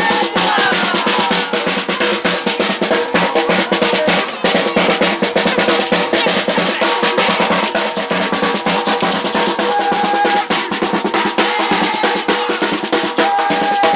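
Batucada percussion group drumming a dense, steady samba rhythm on drums and snares, with only a brief dip about four seconds in.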